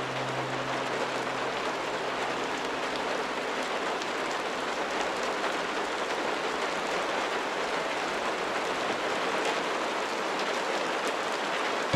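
Steady rain falling, an even hiss. The last held notes of soft music die away in the first few seconds.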